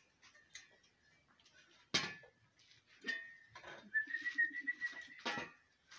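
Steel shovels working a heap of chicken feed mixed with biochar on a concrete floor: two sharp scrapes of the blade on the concrete, about two seconds in and near the end. Between them a steady high whistle lasts over a second.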